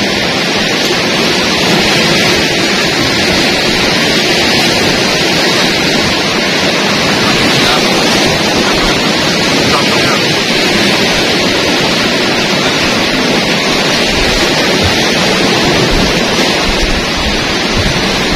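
Heavy sea surf breaking on a rocky shore close by: a loud, steady rushing roar with no let-up.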